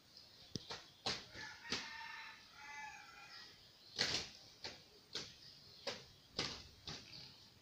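A series of sharp taps or knocks, roughly every half second, with a pitched bird call lasting about two seconds near the start.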